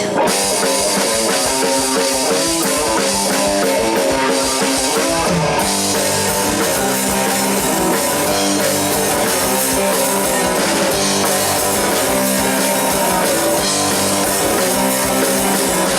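Rock band playing the instrumental intro of a song: lead guitar, bass guitar and drum kit, with no singing yet.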